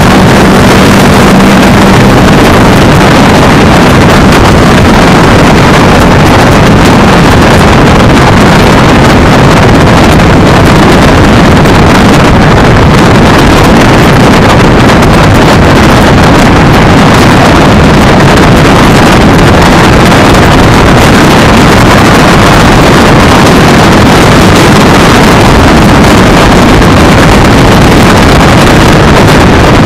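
Loud, steady wind buffeting on the microphone of a camera mounted on an electric scooter riding along a road at speed, with a brief low hum in the first couple of seconds.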